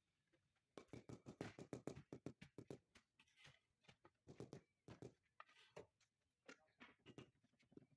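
Rubber mallet tapping a marble floor slab to bed it into wet cement mortar. There is a quick run of light taps about a second in, then slower single taps.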